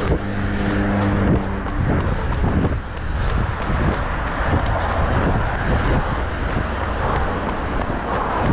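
Road traffic with wind rushing over the microphone. A steady engine hum is there for the first couple of seconds, then only an even rushing noise.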